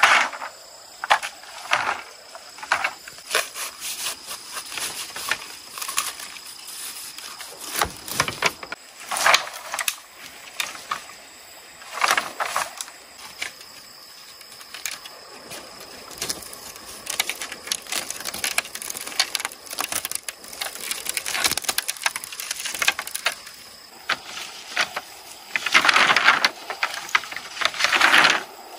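Green bamboo poles knocking and clattering against one another as they are handled and gathered into a bundle, with rustling of dry leaves. Irregular short knocks run throughout, and the loudest stretch of clatter comes near the end.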